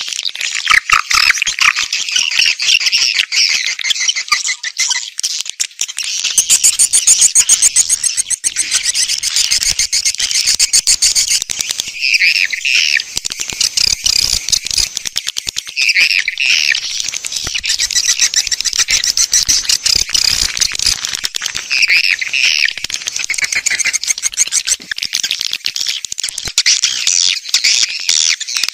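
Swiftlet lure recording: dense, continuous high-pitched twittering chirps and rapid clicking calls of swiftlets, the kind played from a swiftlet house to draw the birds in to nest.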